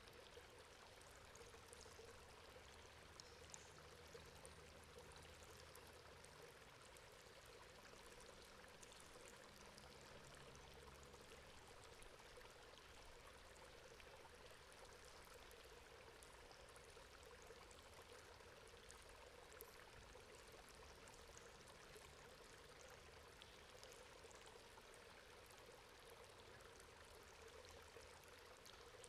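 Water running and pouring through a metal grate, a faint, steady flow with small drips and splashes.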